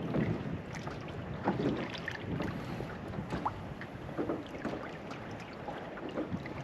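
Water slapping against a small fishing boat's hull, with scattered irregular knocks and splashes over a steady hiss of wind on the microphone.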